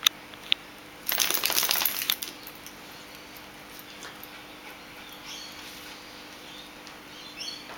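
Two dogs, a Jack Russell terrier and a golden retriever, play over a plush toy. There is a sharp click at the start, then about a second of dense rustling and scuffling about a second in, followed by fainter sounds as the retriever mouths the toy.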